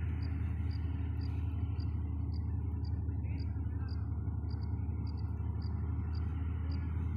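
Combine harvester running as it cuts the field: a steady, even engine drone, with a short high-pitched chirp repeating about twice a second on top.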